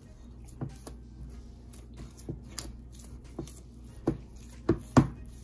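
Silicone spatula stirring a thick chickpea-flour dough in a stainless steel bowl, with irregular knocks and scrapes of the spatula against the bowl; the loudest knock comes near the end.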